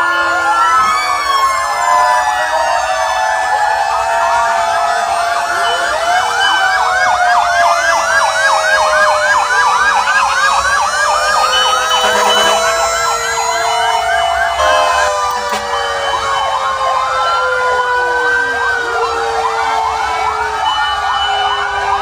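Many fire truck sirens sounding at once, their rising and falling wails overlapping out of step, with a fast yelp running through the middle.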